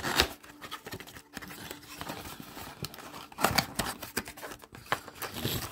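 Cardboard trading-card blaster box being torn open by hand: the flap and perforated top rip and crackle, with the loudest rips about a quarter-second in and about three and a half seconds in.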